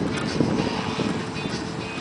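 Gas engine of an Ultra Sport 1000 radio-control model airplane running steadily in flight.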